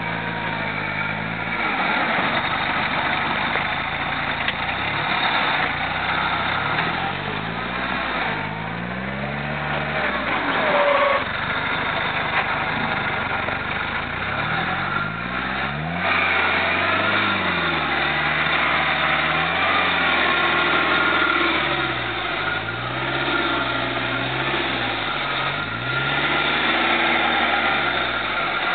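Off-road 4x4 truck engine revving up and falling back again and again, several rises in pitch one after another, as the vehicles work through deep mud.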